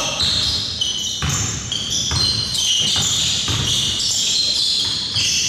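Basketball bouncing on a gym floor during play: a few irregular thuds, with high squeaks over them.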